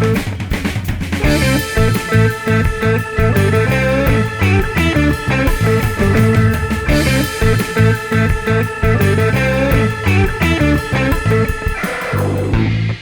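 Background rock music with electric guitar and bass over a steady beat.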